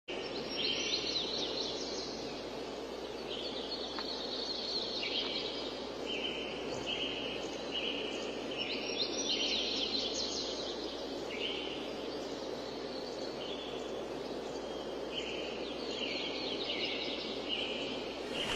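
Birds chirping and trilling in short repeated phrases, one after another, over a steady background rush.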